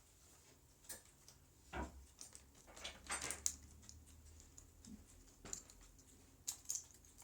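Light clicks and scrapes of a metal laptop hinge against plastic casing as it is worked off an HP Pavilion G6 laptop: a handful of separate contacts, the loudest a short scraping cluster about three seconds in.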